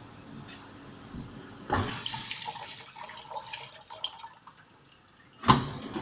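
Fagor LVC-21 dishwasher: its steady running hum stops with a sudden clunk, followed by a few seconds of water splashing and dripping. Near the end a sharp loud thump comes, and the hum starts again.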